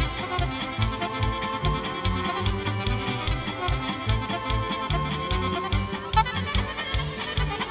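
Serbian folk ensemble playing a fast kolo dance tune: accordion and violins with saxophone over a quick, even bass beat. From about six seconds in, fast high runs come to the fore.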